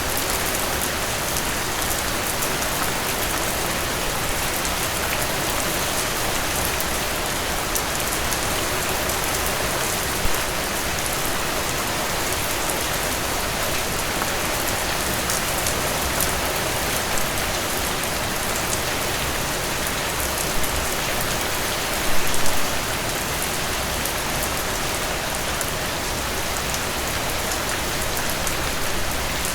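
Steady, heavy rain falling on a surface, a dense even patter of drops. A single louder hit about ten seconds in and a short burst of louder hits a little past the twenty-second mark stand out from the patter.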